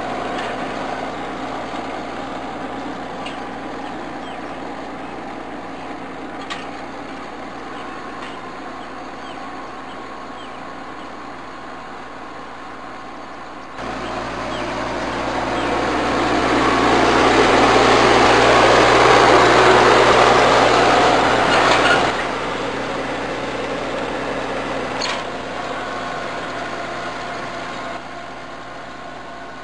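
Mahindra eMax 22 compact tractor's diesel engine running as it pulls cultivator tines through garden soil, fading as it moves away and growing again near the end as it comes back down the next row. In the middle, a loud rushing noise swells for about eight seconds and cuts off suddenly.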